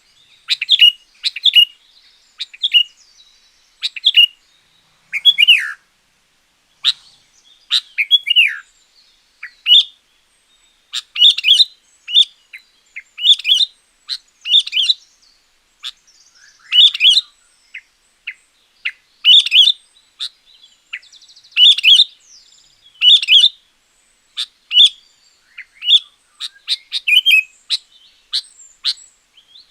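Sooty-headed bulbul (kutilang) singing: short, loud, whistled chirping phrases about once a second, some sliding down in pitch, with brief silent gaps between them.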